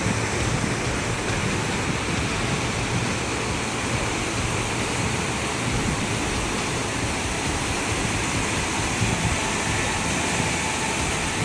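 Strong storm wind and churning river water rushing steadily as one even noise, with no breaks or distinct events.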